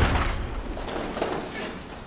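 The echoing tail of heavy wooden church doors banged open, dying away in the large stone hall, with fainter indistinct sounds after it.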